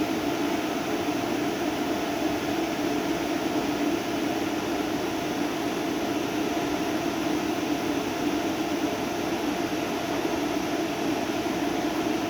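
Steady, unchanging mechanical hum with a constant low tone and hiss, consistent with the rebuilt SL500 MaxG HP unit's motor running.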